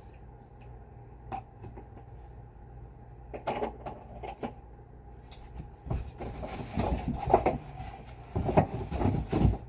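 Plastic vacuum cleaner attachments and their cardboard box being handled: scattered clicks and knocks, with denser bouts of clattering and rustling in the second half.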